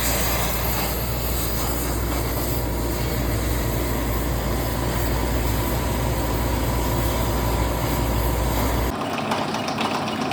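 Steady machine noise with a strong low hum. About nine seconds in it changes abruptly to a lighter sound with scattered clicks.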